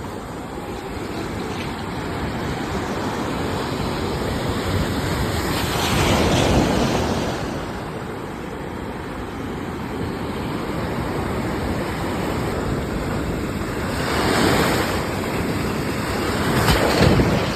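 Sea surf: waves washing in continuously, with louder surges about six seconds in, around fourteen seconds and near the end.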